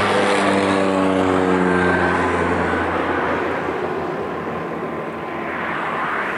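Cessna 208B Grand Caravan single-engine turboprop passing by at power. Its propeller drone is a loud, even hum whose pitch sags slightly over the first few seconds, then fades as it moves away.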